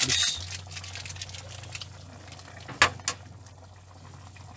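Chicken soup simmering in a wide pan, a soft steady bubbling, with a sharp click about three seconds in and a fainter one just after.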